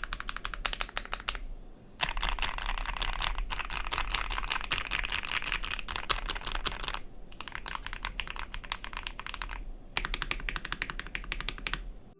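Fast typing on an Ikki68 Aurora mechanical keyboard with Gateron CJ linear switches: a dense stream of keystroke clacks, broken by three short pauses.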